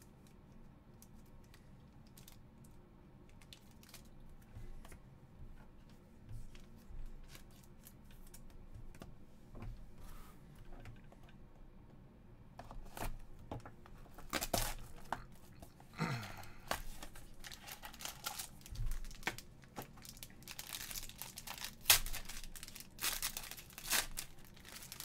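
Faint clicks and rustles of trading cards being handled, then from about halfway through a sealed card box is slit open and its silver foil wrapper is torn and crinkled in loud, sharp bursts.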